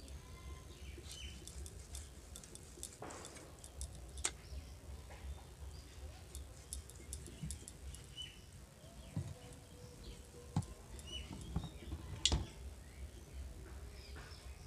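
Light clicks and taps as raw boneless chicken is sliced into small pieces against an upright boti blade, with scattered faint bird chirps.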